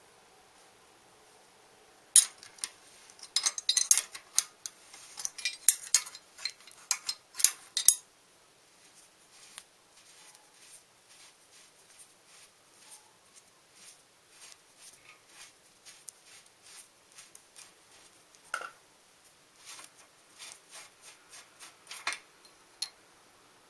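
Metal tools and bicycle bottom-bracket parts clinking and tapping against each other during hand work. A busy run of sharp clinks lasts several seconds, followed by lighter scattered ticks and one louder knock.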